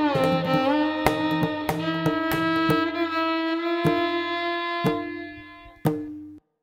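Background instrumental music: a sustained melody with sliding notes over sharp percussive strikes. Near the end it fades, one last strike sounds, and the music cuts off.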